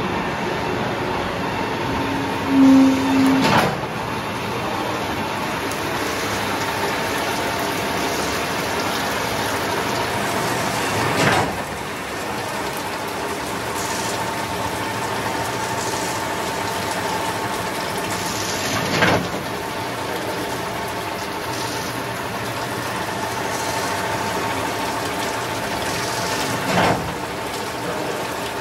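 Gildemeister AS20 multispindle automatic lathe running a machining cycle, with coolant splashing: a steady mechanical noise broken by a sharp knock about every eight seconds, four times in all, as the spindle drum indexes.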